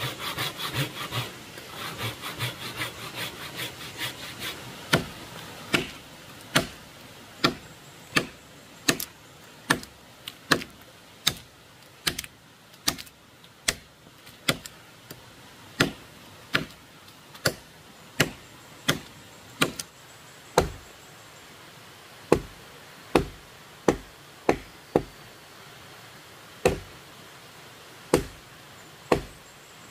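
Hand work on wood: about five seconds of quick rasping strokes, then sharp wooden knocks at an even pace, a little more than one a second, broken by a few short pauses.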